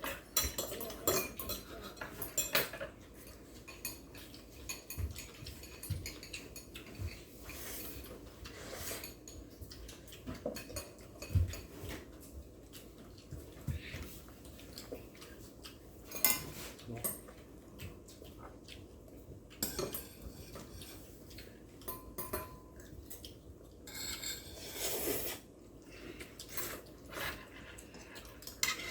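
Eating at the table: scattered clinks and scrapes of metal spoons and chopsticks against bowls and plates, with slurping and chewing of instant black-bean noodles.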